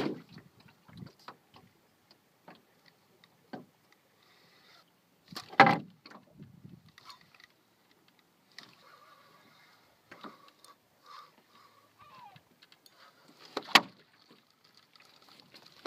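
A spinning reel being cranked in against fish on the line: scattered light clicks and rattles. Two sharp knocks stand out, about five and a half seconds in and near the end.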